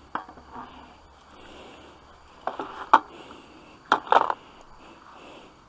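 A few scattered light clicks and knocks, the loudest a sharp click about three seconds in and a short cluster around four seconds in, like equipment being handled, over a faint background hiss.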